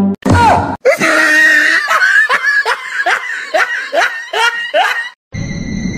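A person laughing hard, a run of short "ha" sounds that fall in pitch, about three a second, cutting off suddenly about five seconds in.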